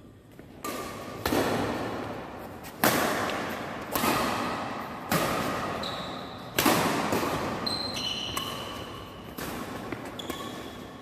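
Badminton rackets striking the shuttlecock again and again in a fast doubles rally, sharp cracks about once a second, each ringing on in the large hall. Short high squeaks of shoes on the court mat come between some of the strokes.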